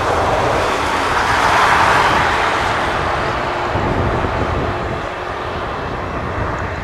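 Jet airliner's engines roaring past close by, swelling to a peak about two seconds in and then slowly fading as it moves away.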